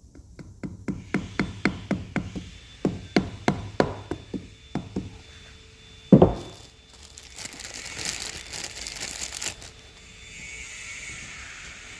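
Metal-on-metal hammer taps driving a new driveshaft oil seal into an Escort RS Turbo gearbox casing: a run of quick taps, about three a second, for the first five seconds. One heavy thud follows about six seconds in, then a few seconds of scraping and rustling.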